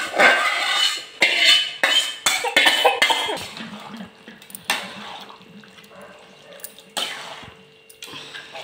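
Chicken pieces going into a pot of wet masala and stirred with a metal spatula: wet squelching and spatula scraping against the metal pot, dense for the first three seconds or so, then a few lighter strokes.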